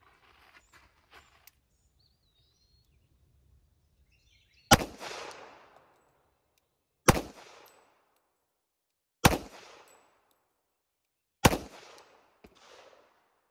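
Four .45 ACP pistol shots from a Ruger SR1911 in slow aimed fire, about two seconds apart, each with a short echoing tail. The first comes about four and a half seconds in, after a quiet start.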